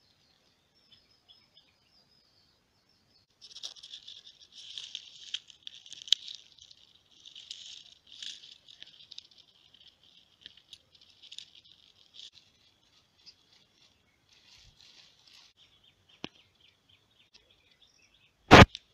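Irregular bursts of high-pitched animal chirping and twittering, starting a few seconds in, with one loud sharp knock near the end.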